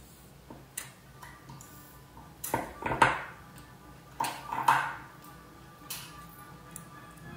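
Metal hand tools clattering on a wooden desk as needle-nose pliers are set down and a small screwdriver is taken up: two short bursts of clatter about a second and a half apart, with a few light clicks before them. Soft background music plays underneath.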